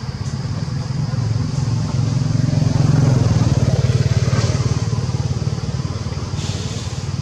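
A motor engine running steadily, a low pulsing rumble that swells a little a couple of seconds in.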